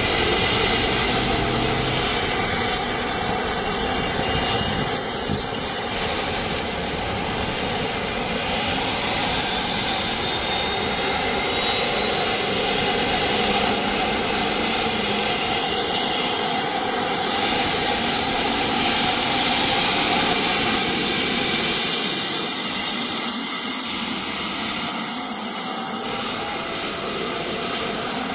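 Eurocopter AS350 B2 Esquilo helicopter's turboshaft engine and rotor running on the ground before takeoff, a steady turbine noise with a high whine that climbs slowly in pitch throughout.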